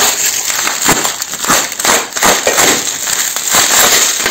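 Bubble wrap crinkling and crackling as a hand works it, a rapid run of irregular small clicks and crackles over a steady high hiss.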